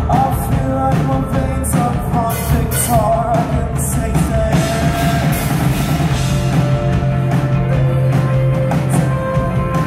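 A rock band playing live at full volume: a dense wall of sustained guitar tones over bass, with drums and repeated cymbal crashes.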